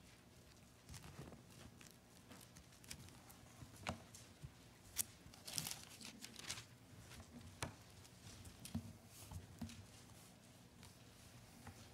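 Thin Bible pages being leafed through close to a pulpit microphone: faint scattered rustles and soft clicks, with the busiest rustling about halfway through.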